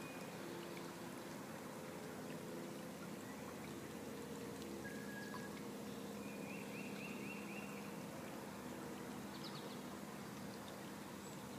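Small woodland creek trickling steadily. A bird gives a short chirping trill about six seconds in.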